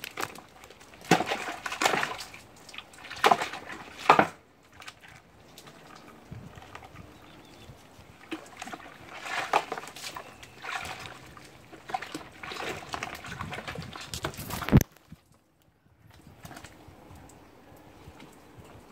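Water splashing and sloshing in a plastic tub as capuchin monkeys move about in it, in irregular bursts, with the loudest, sharpest splash about fifteen seconds in.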